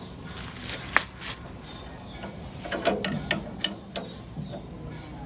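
Wrench working a nut on the steering tie rod at the front wheel: sharp metallic clicks and clinks, one about a second in and a quick cluster about three to four seconds in.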